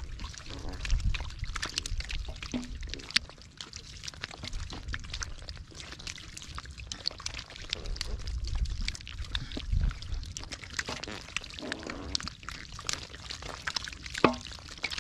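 Wet mud squelching and slapping, with many small sharp wet clicks, as a pile of live catfish wriggle in shallow mud and are handled by hand.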